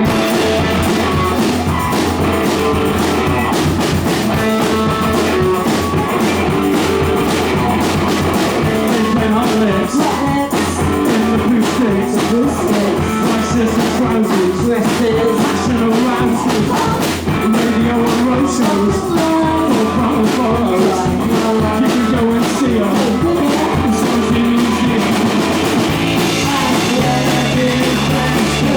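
A live rock band playing a song: drums, electric guitar and bass with a singing voice, at a steady driving beat.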